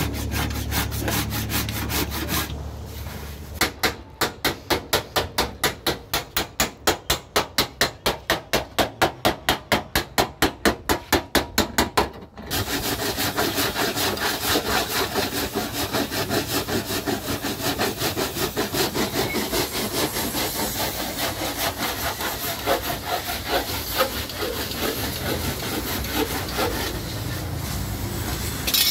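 Rhythmic hand rubbing or scraping strokes on a car's body, about four a second, giving way after about twelve seconds to faster, denser rubbing.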